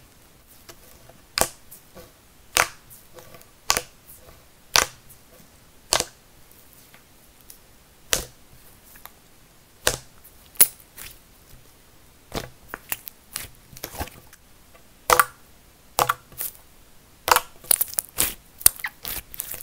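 Soft snow butter slime being pressed and squeezed, giving sharp air-bubble pops and crackles, about one a second at first, then quicker irregular clusters of pops in the second half.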